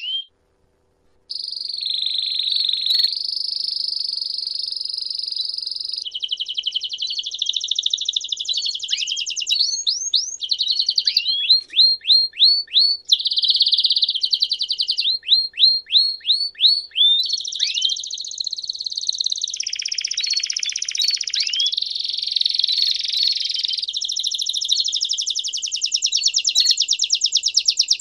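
Domestic canary singing one long, unbroken song that starts about a second in: rolling trills, a middle stretch of quick downward-sweeping notes, and a fast trill near the end.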